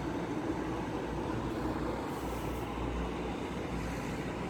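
Steady city street traffic noise, with a distant air raid siren sounding faintly beneath it.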